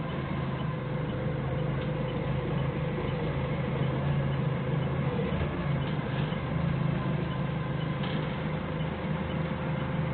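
Forklift engine running steadily while the mast hydraulics lift a load, a constant hum with no breaks.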